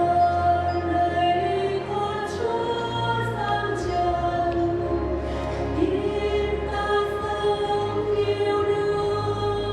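Church choir singing a Vietnamese Christmas hymn, several voices together in long held notes.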